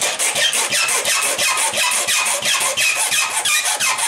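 Flat hand file rasping back and forth across the mouth of a brass .38 Special case held in a reloading press shell holder, trimming it down to .38 S&W length. Rapid, steady strokes, many of them carrying a falling squeal.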